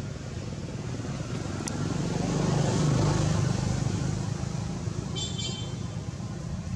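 Road traffic running steadily, with one motor vehicle passing that grows louder to a peak about three seconds in and then fades. A brief high chirp sounds near the end.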